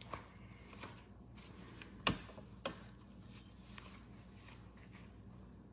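A few light clicks and knocks from things being handled, the loudest about two seconds in, over a steady low hum.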